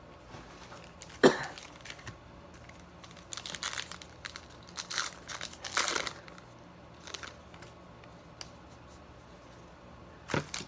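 Topps Heritage High Number trading-card pack wrapper being torn open and crinkled by hand, in short irregular bursts of rustling and tearing. The sharpest burst comes about a second in.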